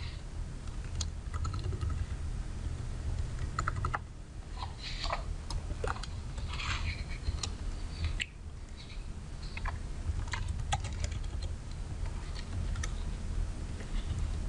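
Typing on a computer keyboard: irregular key clicks, over a low steady hum.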